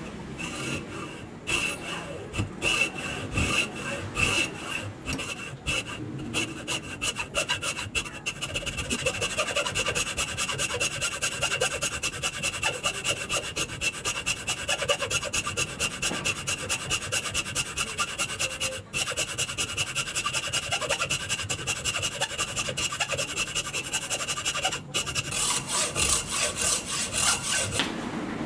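Hacksaw with a fine-tooth blade cutting into a dark wooden block held in a vise, in steady back-and-forth rasping strokes. The strokes come closer together and louder about eight seconds in.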